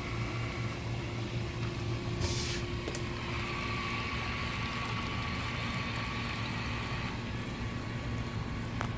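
Small electric motors of an amphibious RC car whining steadily as it drives through pool water, over a constant low hum. A short burst of hiss comes about two seconds in, and a single click comes near the end.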